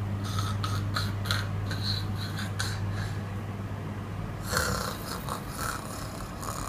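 A person snoring: a run of short, rough bursts in the first few seconds, then a longer, louder snore about four and a half seconds in, over a steady low hum.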